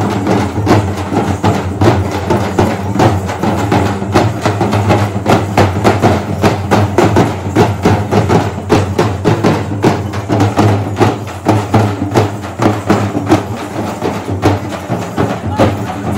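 Teenmaar drumming by a large group of stick-beaten drums with white heads: a loud, dense, fast beat that keeps going without a break.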